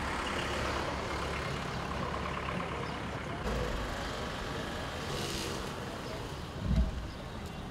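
Steady outdoor noise of road traffic, with a short hiss about five seconds in and a dull low thump near the end.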